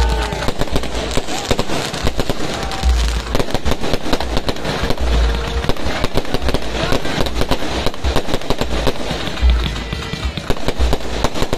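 Aerial fireworks going off continuously: a dense run of sharp bangs and crackles with repeated deep booms.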